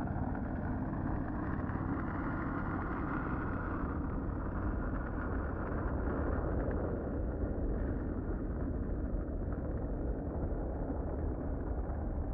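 Car engine running steadily with a low, even hum that eases off slightly near the end.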